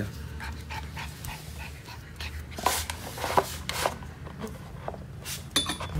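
A puppy panting and breathing as it noses at a plastic water bowl, with scattered small clicks and taps.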